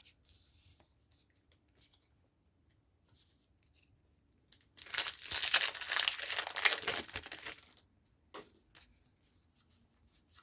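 Foil wrapper of a Pokémon TCG booster pack being torn open and crinkled: about five seconds in, a crackling tear of about three seconds. Faint handling ticks come before and after it.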